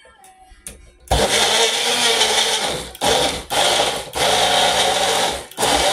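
Magic Bullet blender motor running from about a second in, chopping strawberries and banana. It runs in pulses as the cup is held down, with four brief breaks.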